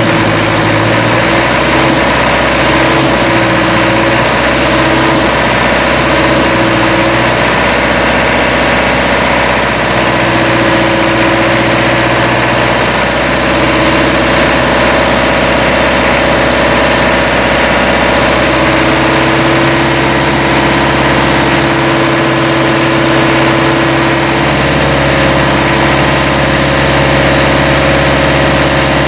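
Mitsubishi 4D30 four-cylinder diesel engine idling steadily with the hood open. The owner judges that its valve clearances have grown too wide and need adjusting.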